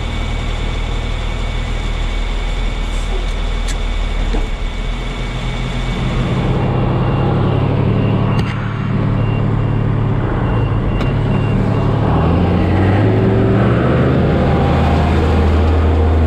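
Large diesel engine of farm harvest machinery running steadily. Its engine speed rises about six seconds in and shifts again near the end. A faint repeated beep sounds through the middle.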